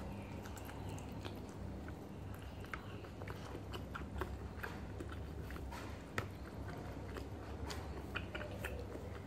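A person chewing and biting with the mouth close to the microphone, eating squid adobo and rice by hand: irregular wet mouth clicks and smacks over a steady low hum.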